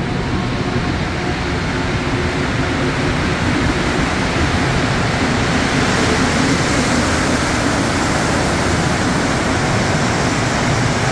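Rubber-tyred Montréal Métro train running along the platform: a steady rushing noise with a low hum underneath, growing slightly louder over the first half.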